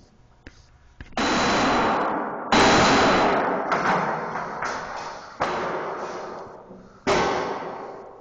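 Ten-pound sledgehammer smashing into a school desk: four heavy strikes, each dying away slowly.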